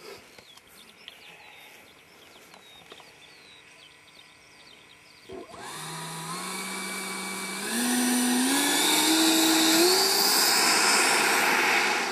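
Electric ducted fan of a HobbyKing BAE Hawk model jet spooling up for its takeoff run. The whine starts about five seconds in, climbs in pitch in several steps as the throttle is advanced, grows much louder, then holds high and steady.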